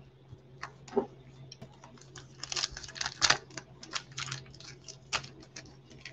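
Trading cards being handled in gloved hands: a run of light clicks, flicks and rustles as the cards are slid through and shuffled, busiest from about two and a half to three and a half seconds in, over a faint steady low hum.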